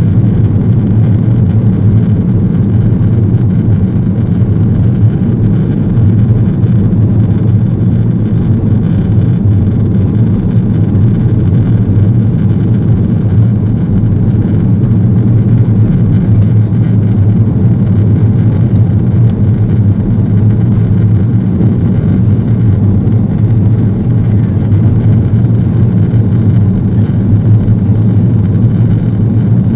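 Steady, loud cabin roar of an Airbus A330-200 climbing after takeoff: engine thrust and rushing air heard from a seat by the wing, with a deep hum underneath.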